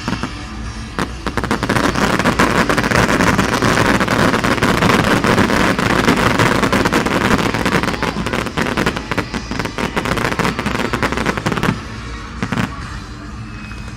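Fireworks: a dense barrage of rapid bangs and crackling that swells about two seconds in and drops away sharply near the end.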